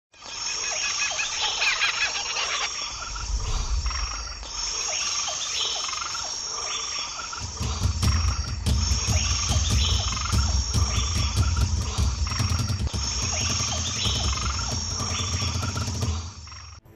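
Tropical rainforest ambience: frogs croaking over a steady high insect buzz. A low rumble joins about halfway through, and everything cuts off suddenly near the end.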